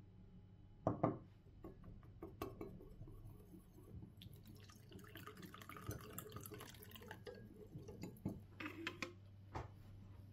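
Water poured from a small glass into a ceramic bowl of starch, a light splashing trickle lasting a few seconds, to make a starch slurry. A sharp knock about a second in, and a few short clinks near the end.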